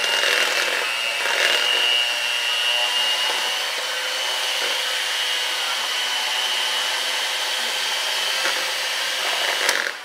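Electric hand mixer running steadily with a high whine, its beaters churning a thick cheesecake filling in the bowl. It switches off near the end.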